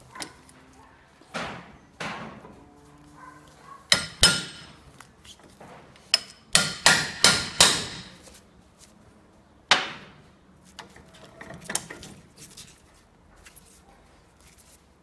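Hammer striking steel on a bearing separator gripping a propeller-shaft stub in a vise, each blow sharp with a metallic ring, to drive the seized inner race of the old centre support bearing off the shaft. The blows come in irregular groups: two about four seconds in, a quick run of five a couple of seconds later, and one more near ten seconds.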